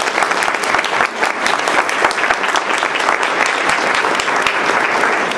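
Audience applauding: a dense, steady round of clapping that dies away at the very end.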